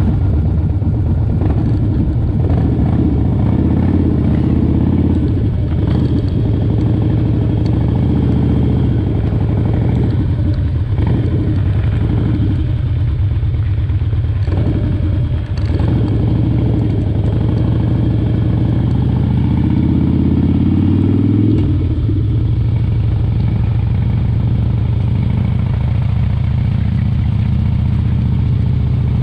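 Engine of a small motor vehicle running steadily while under way, its pitch rising as it speeds up a couple of times and dropping back about three-quarters of the way through.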